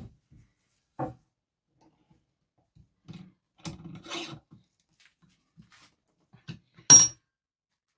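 Handling of a sledgehammer head on its new wooden handle: a knock, a scraping rub, and near the end one sharp metallic clink that rings briefly, the loudest sound.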